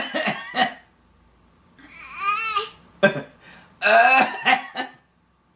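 A toddler's pretend coughing, imitating her grandfather's cough, in several short, harsh bursts: near the start, about three seconds in and again just after four seconds. About two seconds in there is a high, rising-and-falling whining vocal.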